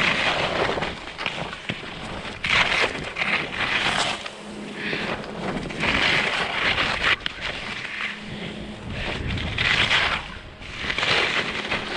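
Skis swishing and scraping over snow in a run of turns, a hissing swell every second or two, with wind buffeting the microphone.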